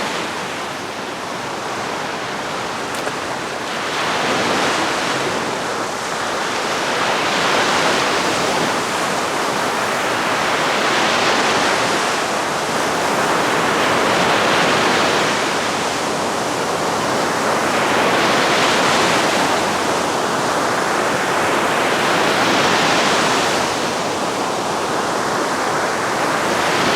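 Sea waves breaking and washing up on a beach: a steady loud rush that swells and ebbs about every three to four seconds.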